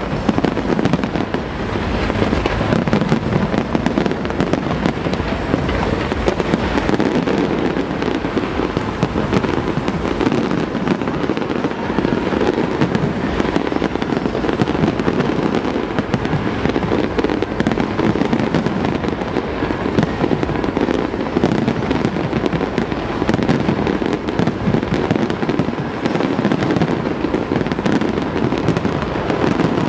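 Large fireworks display: aerial shells bursting in a dense, unbroken barrage.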